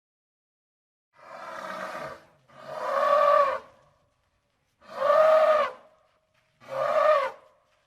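Elephant trumpeting: four separate brassy calls, each about a second long, rising and falling in pitch. The first call is quieter than the three that follow.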